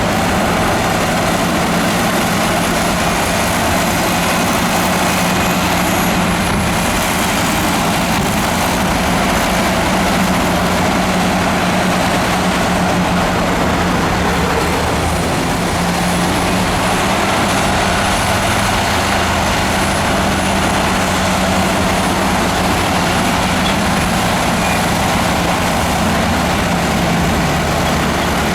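Heavy earthmoving machine's diesel engine running steadily at an even pitch, with a faint, wavering high whine above it.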